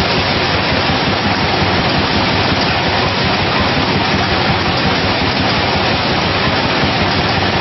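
A 24,000-bottle-per-hour bottling combi block running at production speed: a loud, steady, dense mechanical noise with no distinct beats or tones.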